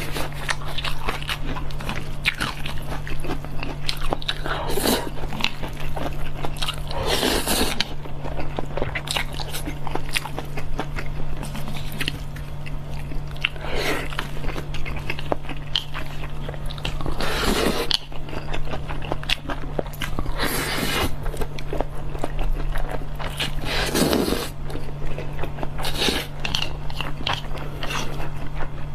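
Close-up chewing of rice noodle rolls: many small wet mouth clicks, with a longer, louder eating sound every few seconds.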